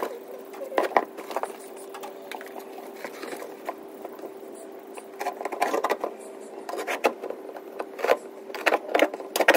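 Cardboard being cut with a knife and handled: scattered scraping and crackling, busier in the second half, over a steady hum.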